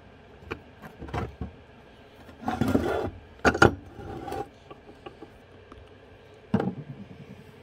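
Metal snowmobile clutch parts handled and fitted together on a wooden workbench: the cover half of a CVTech primary clutch is set down onto its sheave. Scattered knocks and a scraping slide are heard, the loudest being two clanks about three and a half seconds in, with another clunk near the end.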